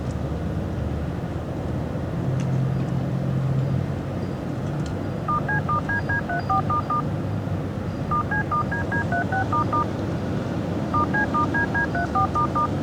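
Three quick strings of DTMF touch tones, each about a second and a half long, over steady outdoor background noise. A low hum sounds for a couple of seconds before the first string.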